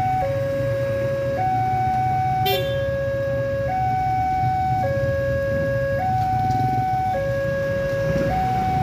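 Railroad level-crossing warning alarm from the loudspeaker on the crossing signal: an electronic two-tone signal alternating steadily between a lower and a higher note, each held for just over a second, warning that a train is approaching and the barrier is down.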